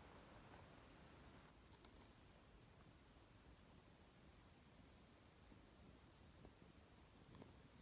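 Faint, high insect chirps in an even train, a little under three a second, starting about a second and a half in, over a soft steady hiss.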